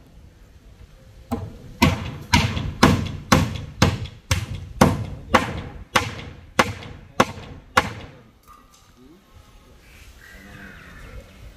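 Claw hammer striking the wooden formwork boards around a concrete column, about fourteen steady blows at two a second, stopping about eight seconds in.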